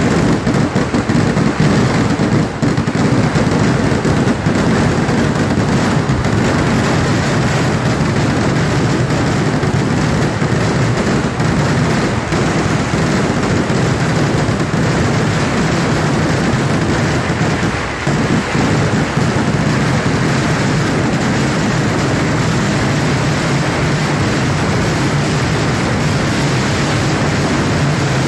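Kerala temple-festival fireworks barrage (vedikettu): firecrackers and shells going off so rapidly that the bangs run together into one loud, continuous noise. Separate sharp cracks stand out most in the first few seconds.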